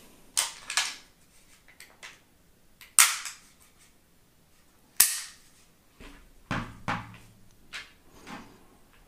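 Sharp metallic clicks from handling a Glock 17 Gen5 T4E RAM .43 calibre CO2 pistol: a quick pair about half a second in, then single loud clicks near three and five seconds. Duller knocks follow about six and a half seconds in as the pistol is set down on a wooden table.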